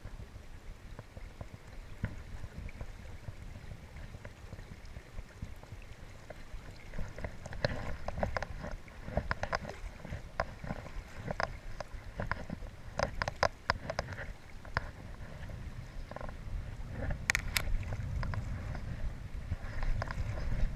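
Low rumble of river water and wind on an action camera's microphone, with scattered sharp clicks and knocks from about seven seconds in.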